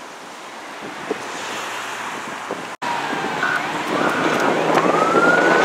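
Wind rumbling on the microphone over road noise. About three seconds in, an emergency vehicle's siren starts up and wails, its pitch climbing slowly as it gets louder.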